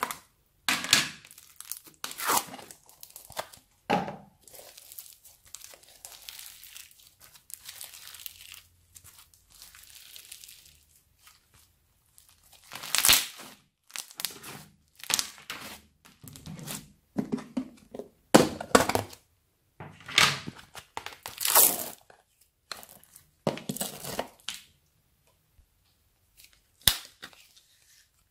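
Hands squeezing, pressing and pulling apart thick slime studded with sprinkles and foam beads, making irregular sticky pops and crackles, with slime peeled out of plastic containers. Several of the loudest pops come in the second half.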